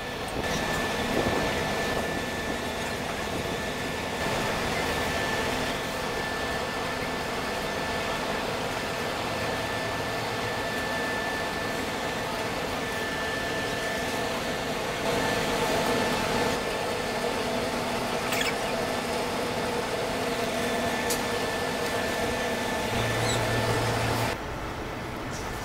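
Steady mechanical hum of a cruise ship's machinery while docking, with a thin high whine and a few lower steady tones running through it. It drops off suddenly near the end.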